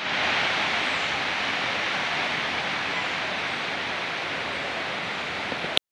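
Steady rush of a small mountain-fed stream flowing, cutting off suddenly just before the end.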